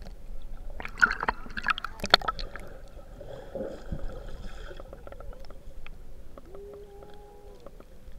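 Muffled underwater sound heard through a submerged camera: water sloshing and gurgling, with a cluster of sharp clicks and knocks in the first couple of seconds. A brief steady hum comes in about six and a half seconds in and stops a second later.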